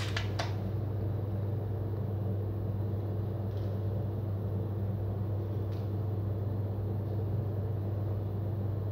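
Steady low hum with a few higher overtones and no change in level, with two faint short rustles about three and a half and six seconds in.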